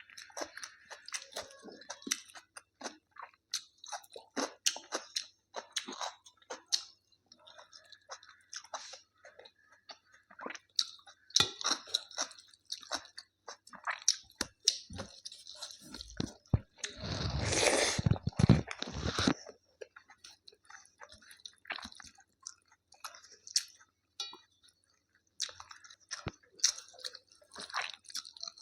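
Close-miked chewing and crunching of food, many small wet clicks and crackles in the mouth, with one louder, longer noisy stretch about two-thirds of the way through.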